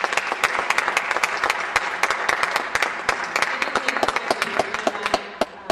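Audience applauding, the clapping thinning out and stopping just before the end.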